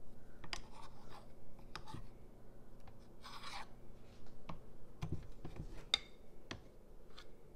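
Faint scattered clicks and light scraping from a metal spoon and muffin batter being handled over a lined muffin tin, with a short rustle about three seconds in and a few soft knocks around five seconds in.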